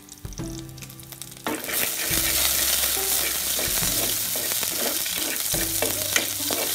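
Chopped garlic and rampe (pandan) leaves sizzling in hot coconut oil in a clay pot. The sizzle jumps up sharply about a second and a half in and stays loud, with short clicks and scrapes from a wooden spatula stirring against the pot.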